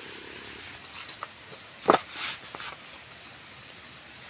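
A sharp knock about two seconds in, followed at once by a brief rustle, with a few lighter clicks before and after: a backpack being handled and hung on a bamboo post.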